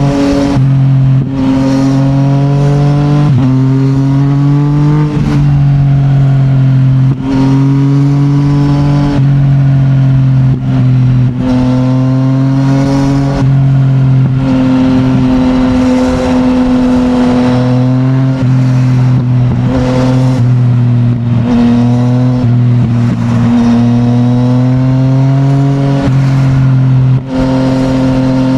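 Yamaha MT-09's crossplane three-cylinder engine through an Akrapovic full titanium exhaust, pulling hard on the road. The pitch climbs with revs and drops at each of several quick upshifts, with stretches of steadier cruising in between.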